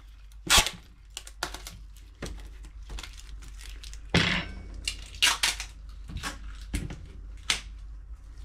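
A string of irregular clicks, knocks and clatters of objects being handled, the sharpest about half a second in and a cluster around four to five and a half seconds in.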